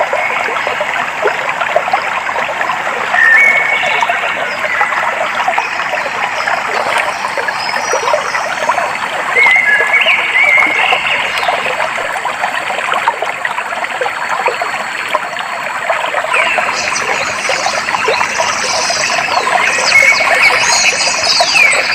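Clear stream water trickling and splashing steadily over stones, with birds chirping over it: short chirps a few seconds in and again around the middle, and a run of quick high calls near the end.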